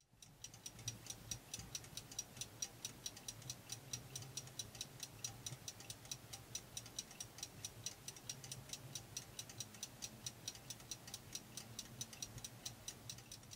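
Antique mechanical desk clock ticking: a faint, fast, even tick of several beats a second, over a faint low hum.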